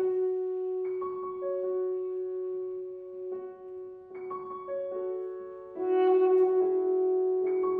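Alto saxophone holding one long sustained note while a grand piano strikes chords beneath it, about five times, each ringing and fading; the music grows louder about six seconds in.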